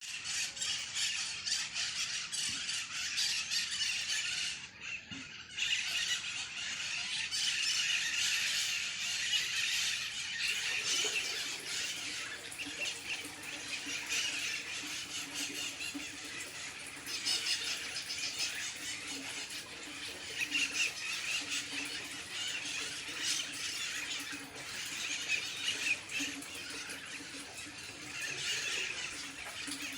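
A flock of maritacas, small Brazilian parrots, screeching together in a loud, dense chorus of shrill calls that dips briefly about five seconds in.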